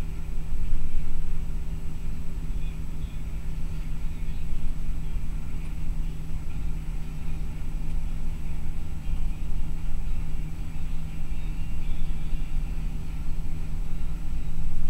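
Steady drone of a bus engine and road noise heard from inside the moving bus, with a constant low hum.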